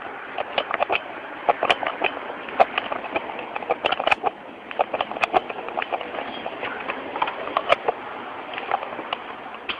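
Handling noise from a hand-held recorder carried by someone walking: irregular clicks and knocks several times a second over a steady rustling hiss, with footsteps.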